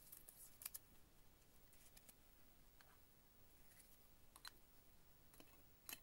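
Faint plastic rustles and a few light clicks as a trading card is handled and slid into a soft penny sleeve and a rigid top loader, over near silence. The clearest clicks come just under a second in and just before the end.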